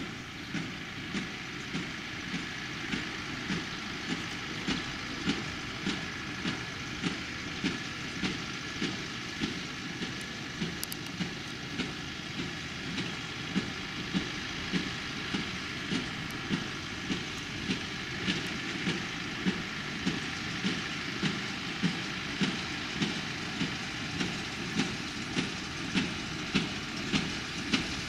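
Small square baler working behind a Massey Ferguson tractor: the plunger knocks steadily, a little under two strokes a second, over the tractor's engine running.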